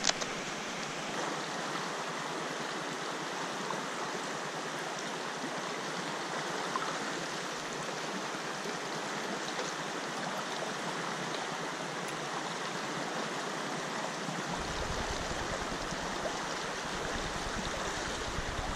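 Steady rush of a shallow river running over rocks and riffles. A low rumble joins about three-quarters of the way through.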